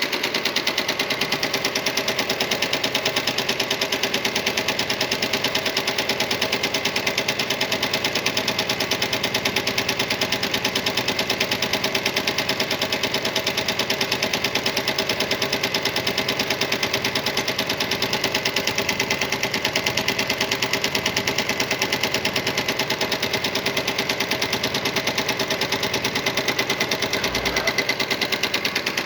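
Sewing machine stitching steadily at a fast, even rate, a rapid run of needle strokes without a break.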